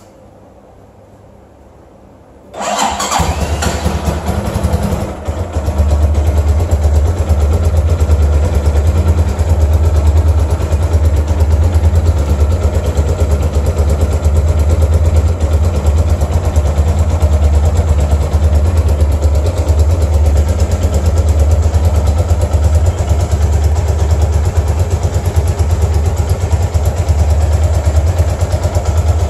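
Zongshen-built Yamaha R1 replica's 223 cc single-cylinder four-stroke engine started about two and a half seconds in, dipping briefly around five seconds, then running steadily.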